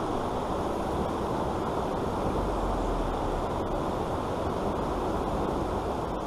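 Steady low rushing noise, even throughout with no distinct events, muffled as if heard through a closed action-camera housing.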